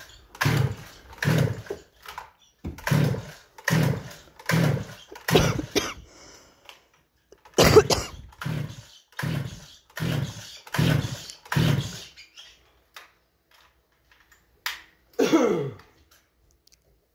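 STIHL two-stroke chainsaw being pull-started on choke: about a dozen quick pulls of the starter cord in two runs, each a short whirr of the engine turning over that falls in pitch, then one last pull a few seconds later. The engine never catches, which the owner puts down to there not being enough gas in the tank.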